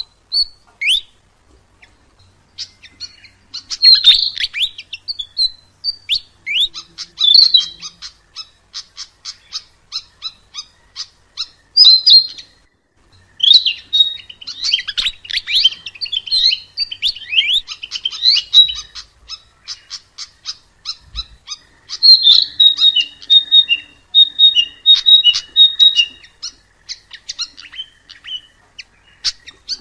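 Sikatan emas, a small Ficedula flycatcher, singing a long, varied song of high chirps, warbles and fast runs of ticking notes, with a short break about halfway. Near the end it repeats a clear falling two-note phrase over and over.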